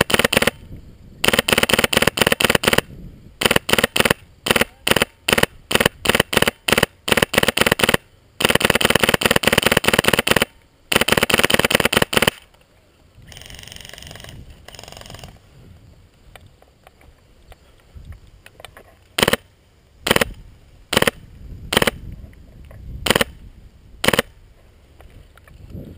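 Polarstar-powered Magpul M4 airsoft gun firing: long rapid full-auto bursts and quick strings of shots through the first half, then about six single shots a second or so apart near the end.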